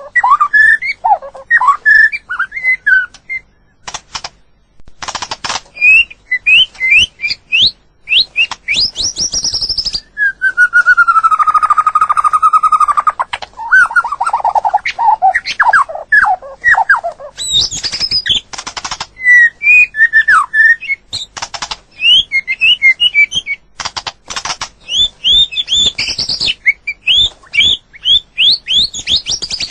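White-rumped shama singing a varied song of quick whistled and slurred notes, with one long held whistle about midway, interspersed with many sharp clicks.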